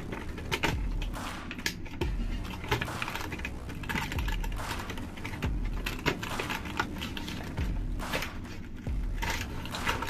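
Quick, irregular clicks and taps of hard plastic being handled, over a soft background beat that pulses about every second and a half.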